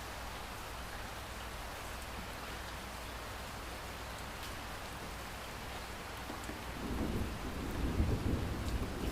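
Heavy rain pouring steadily, with a low rumble of thunder rolling in about two-thirds of the way through and swelling to the loudest part near the end.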